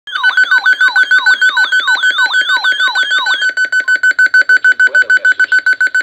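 Weather alert radios sounding their alarms for a severe thunderstorm warning. Two electronic alert tones play together: a falling sweep repeating about three times a second, which stops about halfway through, and a rapid steady-pitched beeping that keeps going.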